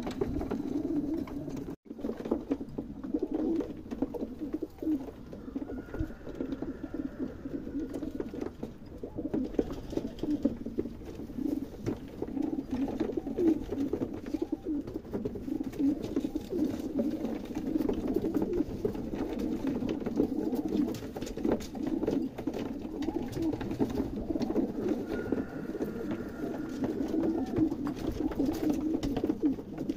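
Many pigeons cooing together in a continuous low, rippling chorus.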